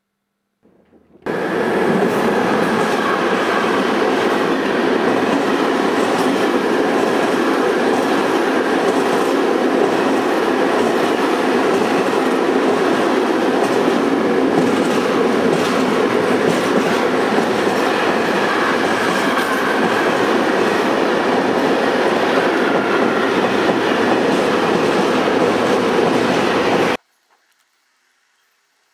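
A train running on rails, a steady, loud rolling noise that starts abruptly a little over a second in and cuts off sharply near the end.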